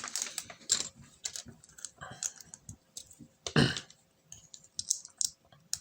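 Small plastic LEGO pieces clicking and tapping as they are handled and pressed together, in scattered light clicks, with one brief louder noise about three and a half seconds in.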